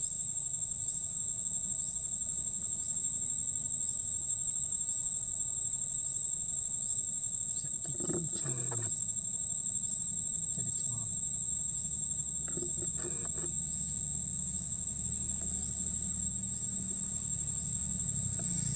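Steady, high-pitched drone of insects, with a short call falling in pitch about eight seconds in.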